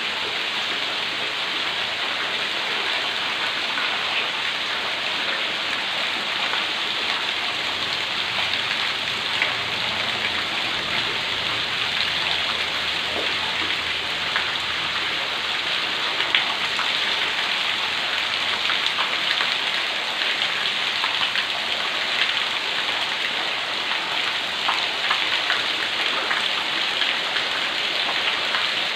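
Running water, a steady splashing rush with faint scattered drips and ticks through it.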